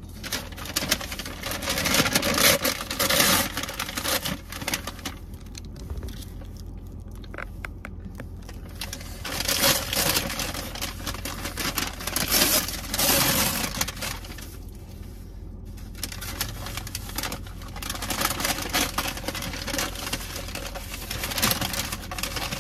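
Paper takeout bag and food packaging rustling and crinkling in irregular bursts as food is taken out and unwrapped by hand, over a steady low hum.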